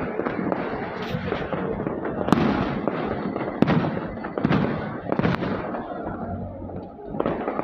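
Aerial fireworks going off: a string of sharp bangs and pops at irregular intervals over a continuous crackle, thinning out briefly near the end.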